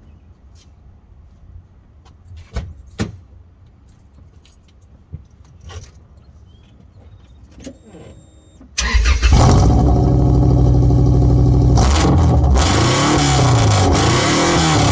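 A few faint knocks, then about nine seconds in a Subaru Outback's flat-four engine starts and runs loud through an exhaust with the muffler cut off. It is revved up and down a few times near the end.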